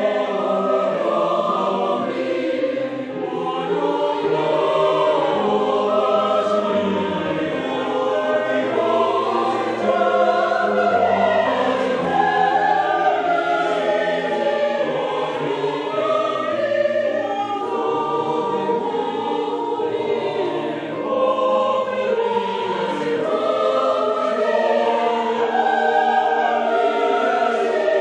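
Mixed church choir of men and women singing a hymn together, with grand piano accompaniment.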